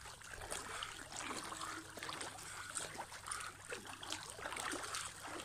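Pool water sloshing and swishing as a person's arms circle through it, just at and below the surface, in an irregular run of small splashes.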